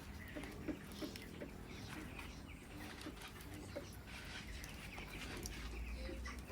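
Yard birds and domestic animals calling: scattered short chirps and calls over a low steady background.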